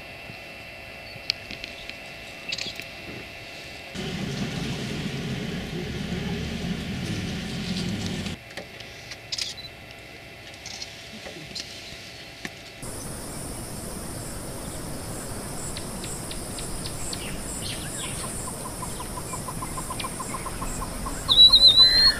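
Outdoor wildlife ambience in several abruptly changing stretches, with birds calling. A low steady hum runs for about four seconds from about four seconds in. A loud, high, warbling bird call near the end is the loudest sound.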